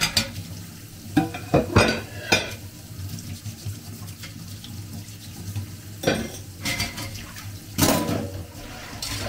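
Dishes and cutlery clattering against each other and the stainless steel sink during washing-up by hand, with water running from the kitchen tap. A cluster of sharp clinks comes a second or two in, and more about six to eight seconds in.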